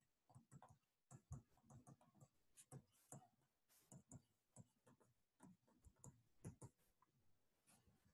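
Faint, irregular clicks and taps of a stylus on a tablet screen while handwriting is written, a few per second.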